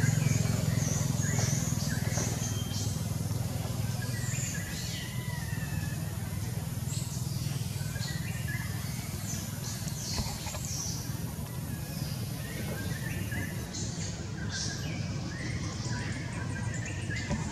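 Low steady engine drone, loudest at the start and easing over the first few seconds, under scattered short, high chirping calls.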